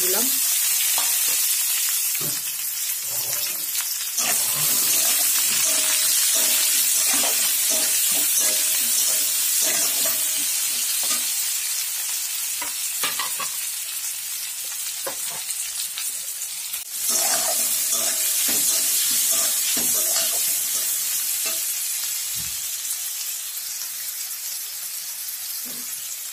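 Chopped onions and crushed garlic sizzling in hot oil in a kadai, stirred with a metal spatula that scrapes and knocks against the pan. The sizzle swells sharply as the onions go in, again about four and about seventeen seconds in, and slowly dies down toward the end.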